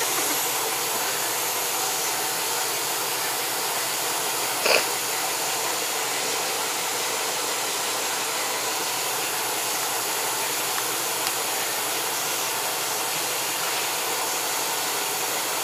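Steady rushing hiss of air or machinery noise, with one short sharper sound about five seconds in.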